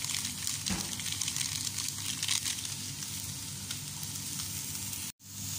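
Sliced bitter gourd, broccoli and cauliflower sizzling in oil in a frying pan, crackling over the first couple of seconds, with a wooden spatula knocking the pan once about a second in. The sound cuts out for an instant near the end.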